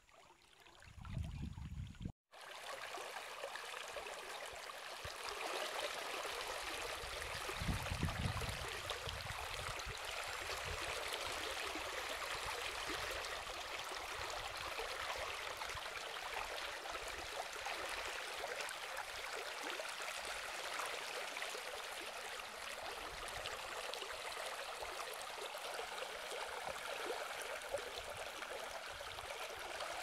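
Shallow river water flowing and rippling with a steady rushing sound, after a brief cut about two seconds in. A low rumble of wind on the microphone comes and goes, strongest about eight seconds in.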